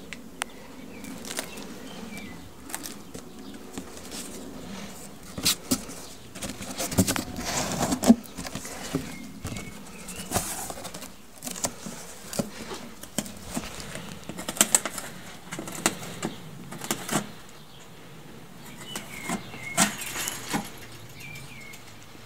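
Irregular handling noise: scattered clicks, taps and rustles, loudest about eight seconds in, with a few faint, short, high bird chirps in the background.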